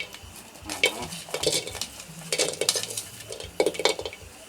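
A utensil stirring, scraping and clinking in a pot while chopped galangal, shallots, chilies and garlic are dry-roasted, with a faint sizzle; the strokes come irregularly, a few each second.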